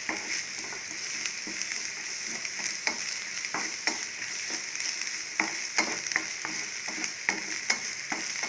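Sliced onions, green chillies and dried fish sizzling steadily in oil in a nonstick frying pan on high flame, with a wooden spatula scraping and tapping against the pan as it stirs, in short irregular knocks about once or twice a second.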